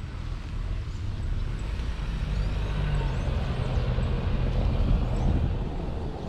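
A motor vehicle passing, its engine and tyre noise swelling to a peak about five seconds in and then fading.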